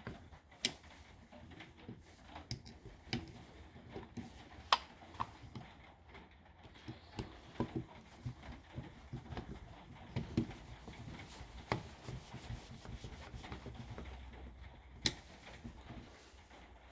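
Scattered small clicks, taps and knocks of a cross-line laser level being handled and reassembled by hand, with a sharper knock about five seconds in and another near the end.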